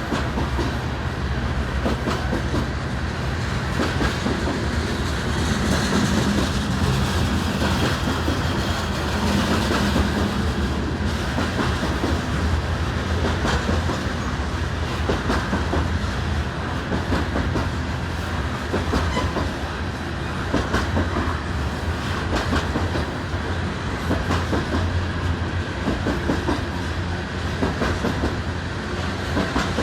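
Loaded coal train freight cars rolling past at steady speed, their wheels clicking and rattling over the rail joints with a continuous low rumble.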